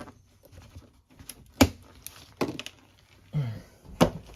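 A handful of sharp knocks and clacks of hard parts and tools being handled during plumbing work, the loudest about one and a half and four seconds in.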